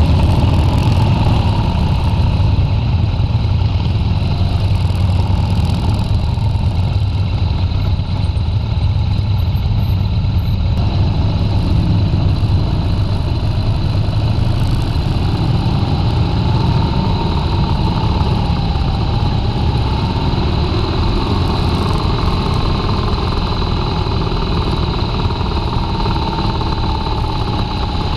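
BMW R 1200 RT's boxer-twin engine running as the bike rides along, heard through a bike-mounted camera with a heavy, steady low rumble of wind on the microphone.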